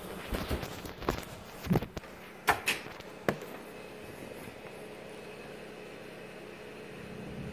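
Several sharp knocks and bumps over the first three seconds or so, like a door or cupboard being handled, then a steady faint hum of a running microwave oven.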